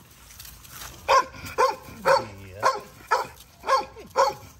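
Blue XL bully puppy barking: about seven short, high barks, roughly two a second, starting about a second in.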